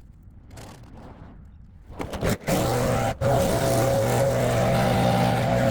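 A motor-driven lawn-care tool starts up about two seconds in and then runs steadily at speed, with one brief dip in level about a second later.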